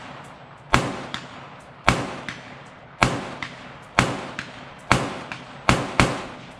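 Bushmaster AR-15 rifle firing 5.56 rounds semi-automatically: seven shots about a second apart, the last two in quick succession.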